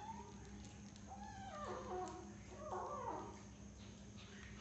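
Cat meowing: about three short, high calls that fall in pitch.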